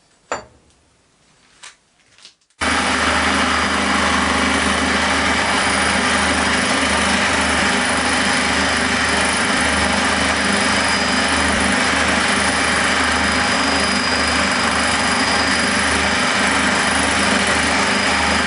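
A few clicks, then a metalworking machine tool is switched on and runs steadily with a constant hum and whine. It starts abruptly and begins winding down right at the end.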